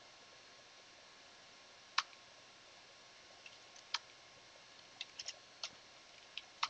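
Computer keyboard keys pressed one at a time, as separate sharp clicks: a single one about two seconds in, a few around four seconds, then a quicker run of keystrokes near the end.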